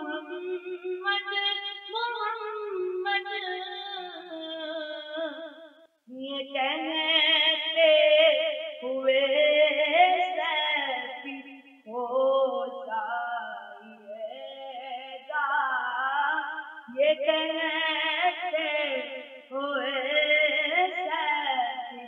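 Unaccompanied vocal singing of an Urdu naat: long held notes with a wavering, ornamented pitch, sung in phrases with short breaks between them, with no instruments.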